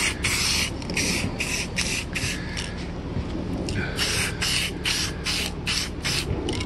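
Aerosol spray paint can hissing in short, quick bursts, about three a second, as white paint is sprayed onto a guitar body; the bursts go fainter for a couple of seconds in the middle, then pick up again.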